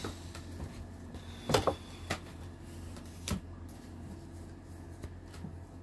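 A few scattered sharp knocks and clicks, the loudest about one and a half seconds in, over a steady low hum.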